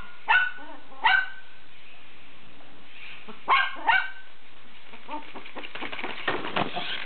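A poodle giving four sharp, high-pitched barks, two in quick succession, a pause, then two more, followed near the end by a quick run of clicks and scuffs.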